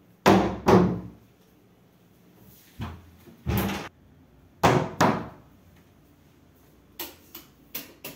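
A pair of laminated wardrobe doors knocking shut against the cabinet frame: three sets of two knocks in quick succession, the first set loudest. A few light clicks near the end.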